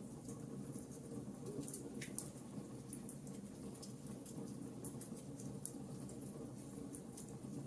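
Wood fire crackling in a fireplace: irregular sharp pops and ticks over a low, steady rumble of the burning logs.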